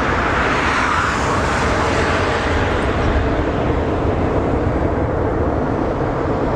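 Boeing 747's jet engines running on the rollout just after touchdown: a steady, loud, dense rush of noise.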